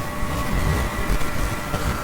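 Low, uneven rumbling with faint steady tones held above it.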